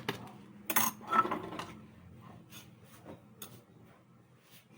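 Kitchen containers and utensils being handled: a knock and a ringing clink about a second in, then a few light taps.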